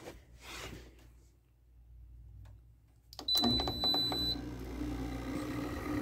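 A Frigidaire window air conditioner's control panel gives one high beep, about a second long, about three seconds in. At the same moment the unit starts up and runs on with a steady hum, restarting after having cycled off on energy saver.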